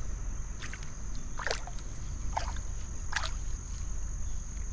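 Water splashing and sloshing in short bursts about once a second as netted fish are handled. Under it runs a steady low rumble and a thin, high, steady tone.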